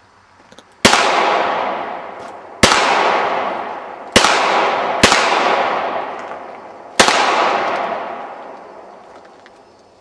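Five handgun shots fired one at a time at uneven intervals over about six seconds. Each is a sharp crack followed by a long echo that fades over a second or more; the fourth comes quickly after the third.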